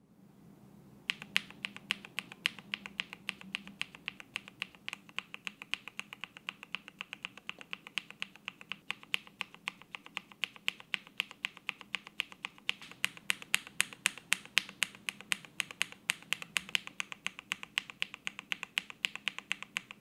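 Mechanical keyboard typing: a KBD67 Lite with a polycarbonate plate and lubed, filmed full-nylon linear switches, the switches changing in turn (Lavender, Gateron Ink V2 among them). The keystrokes start about a second in and go on as a fast, steady run of clacks, several a second.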